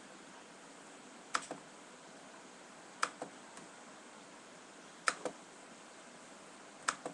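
Computer mouse clicking: four pairs of sharp clicks, one pair about every two seconds, over a faint steady hiss.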